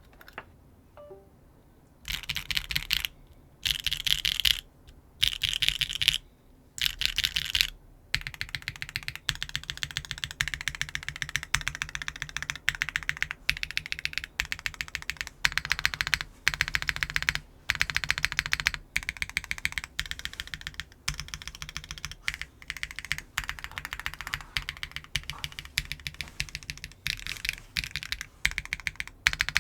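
Typing on a Neo 65 custom mechanical keyboard with a carbon fiber plate and no foam, fitted with Unikeys x Bsun Udon linear switches (long-pole stems), giving a higher-pitched clack on bottom-out. After about two quiet seconds come four short, fast flurries of keystrokes, about a second each, then steady continuous typing.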